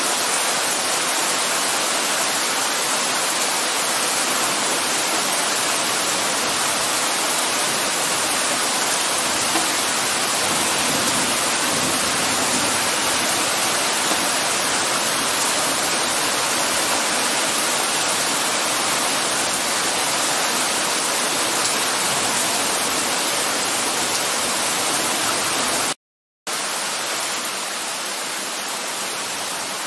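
Torrential rain pouring down steadily, a dense even hiss. It cuts out for a moment near the end and comes back a little quieter.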